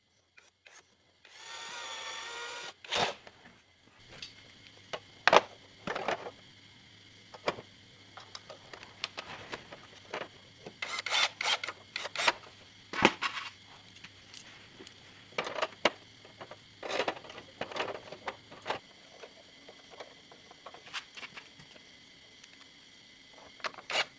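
Workshop tool noise during motorbike engine repair: a brief whine with a slight rise in pitch about a second in, then scattered knocks and clinks of metal tools and parts being handled.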